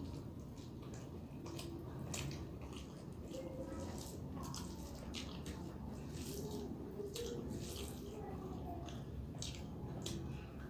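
Wet, close-up chewing and lip smacking of a mouthful of rice and fish eaten by hand, many short clicky smacks one after another over a steady low background noise.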